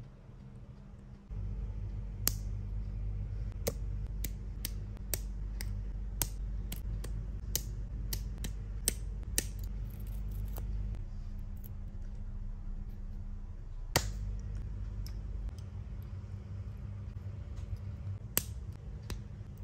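Small sharp clicks and taps of metal tweezers and small plastic action-figure parts being handled, about one or two a second for several seconds, then a few scattered clicks, the loudest about two thirds of the way through. A steady low hum runs underneath.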